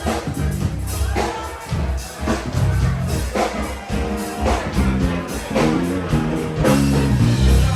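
Live band playing with drums and a heavy bass line, keeping a steady beat of about one strong stroke a second.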